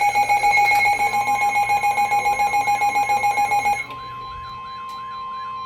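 Weather-radio alert tones: a loud, rapid beeping alarm at about seven beeps a second stops about four seconds in, leaving a steadier, quieter tone near 1 kHz, the NOAA Weather Radio warning alarm that comes before a new warning message.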